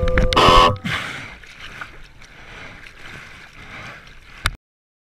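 Water splashing over a surfboard as the surfer paddles, a loud splash at the start, then softer sloshing and gurgling of water against the board. A sharp click comes just before the sound cuts off suddenly.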